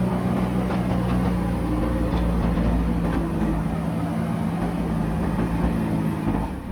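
Diesel engine of a JCB backhoe loader running steadily at working speed, with some faint clatter over it.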